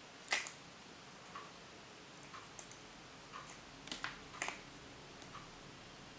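A clear plastic toy egg capsule being pulled apart and handled, giving sharp plastic clicks and light taps. The loudest click comes just after the start, with a cluster of clicks about four seconds in.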